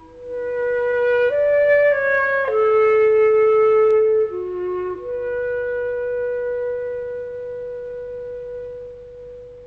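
Background music: a slow solo woodwind melody of held notes, ending on one long note that slowly fades.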